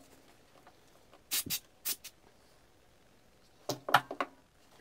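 Light clicks and taps of a jig saw's disassembled metal gear housing being handled and turned over by hand: two clicks about a second and a half in, one more shortly after, and a quick cluster of three near the end.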